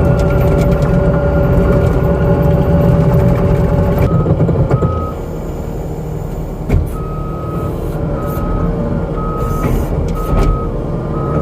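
New Holland C327 skid steer's diesel engine running hard for about four seconds, then easing off as its backup alarm starts beeping about once a second while it reverses. A single clank about three seconds after the beeping starts.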